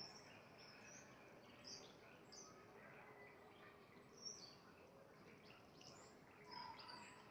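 Several small birds giving short, high chirps at irregular intervals, faint over a steady background hiss.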